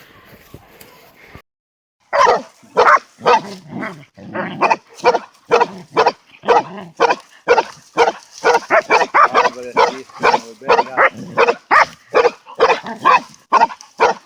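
Young hunting dogs barking rapidly and without let-up, about two to three barks a second, starting abruptly about two seconds in after a brief dead gap.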